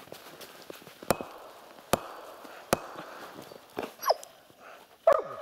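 Three sharp knocks a little under a second apart, then two short animal cries that fall in pitch, the second one loudest.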